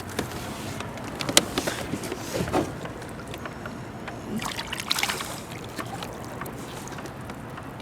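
Water splashing and sloshing beside a kayak as a bull redfish is released, with a few short knocks.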